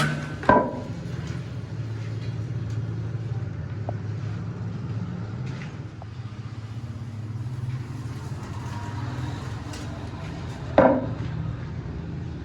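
Two sharp metal clangs, one about half a second in and one near the end, each with a short ring, over a steady low engine hum.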